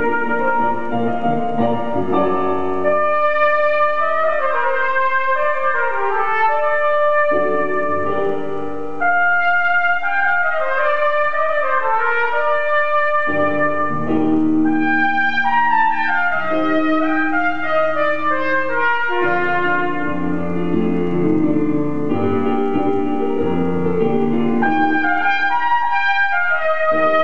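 Cornet playing a slow solo melody in phrases separated by short breaths, over a keyboard accompaniment.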